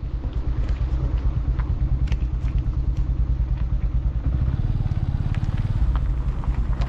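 Motorcycle engine running as it is ridden with three people aboard, a rapid low pulsing with a few light rattles. About four seconds in the engine note deepens and grows louder.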